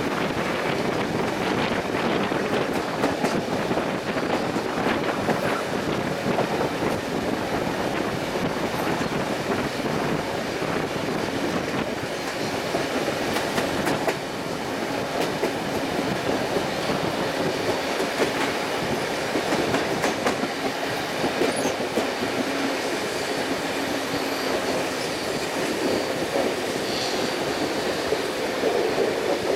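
Steam-hauled heritage passenger train rolling over jointed track and points, its wheels clicking on the rail joints, with flange squeal from the curves, heard from an open carriage window.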